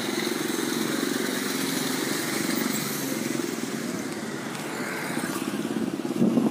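A motorbike engine running steadily, with road traffic, and a short louder bump near the end.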